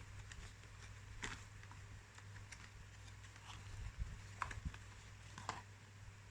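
Faint scattered clicks and taps of a cardboard watch box being handled and opened, over a steady low hum.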